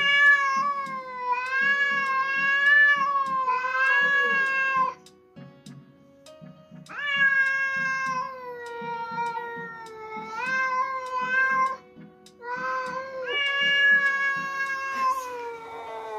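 Domestic cat yowling at another cat in a standoff: three long, wavering, drawn-out cries with short breaks between them, an angry threat display.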